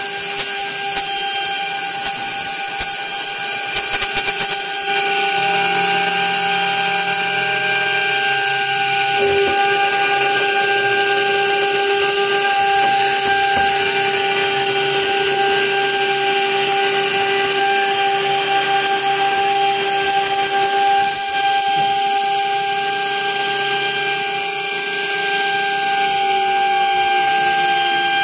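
CNC machine running and cutting: a steady, high, whining machine hum with several held tones over a hiss. A few short clicks come in the first five seconds, and one tone glides downward near the end.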